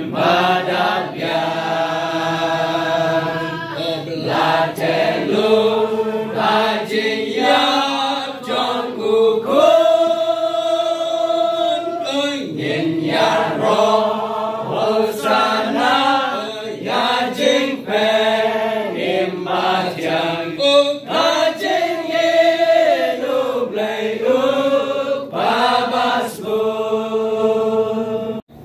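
Congregation singing a hymn together, many voices holding long notes in phrases.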